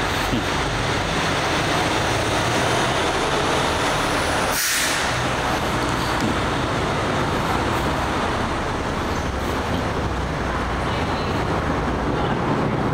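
Steady road traffic noise, with a short, sharp hiss about four and a half seconds in.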